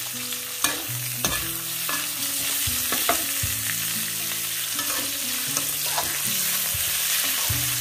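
Pork belly, garlic and chilies sizzling in hot oil in a wok, with a metal spatula scraping and knocking against the pan every second or so as it is stir-fried.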